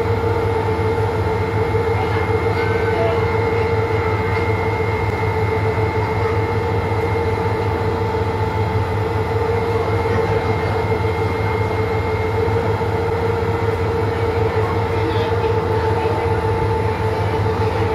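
Sightseeing boat's engine running steadily under way: a constant low drone with a steady whine on top, over the rush of water and air.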